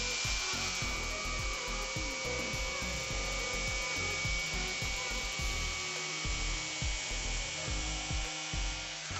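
Corded jigsaw cutting through a luxury vinyl tile, running steadily with a high, even whine over the cutting noise.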